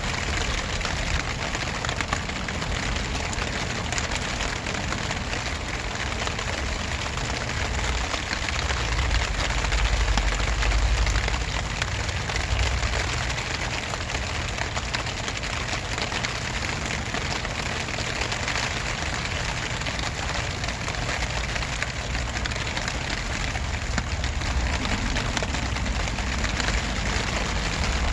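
Steady rain falling, a dense patter of drops, with a low rumble that swells about a third of the way in.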